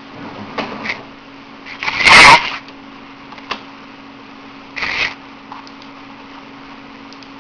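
Short breathy snores of a person asleep on the other end of a phone call, heard over a steady phone-line hiss. A louder rustling burst comes about two seconds in.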